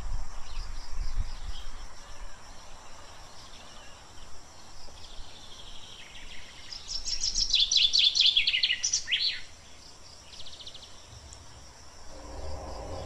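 Garden ambience of insects chirring steadily at a high pitch, with a bird singing a quick run of falling notes about seven seconds in. Background music comes in near the end.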